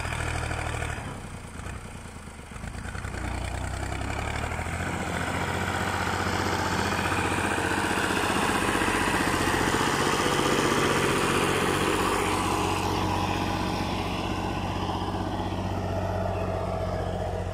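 Fiat tractor's diesel engine working hard under load as it drags a rear blade through sand. The engine grows louder over the first several seconds, and its sound changes at about two-thirds of the way through.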